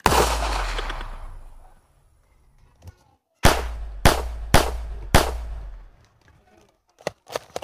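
Gunshots: one loud shot with a long fading tail, then about three seconds later four more shots in quick succession, roughly half a second apart, followed by a few light clicks near the end.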